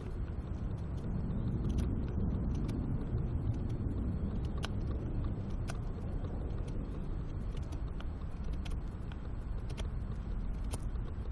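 Scandi-ground PLSK1 bushcraft knife shaving curls down a stick of sound, unrotten wood to make a feather stick: a run of short, sharp scraping strokes a second or so apart, over a steady low rumble.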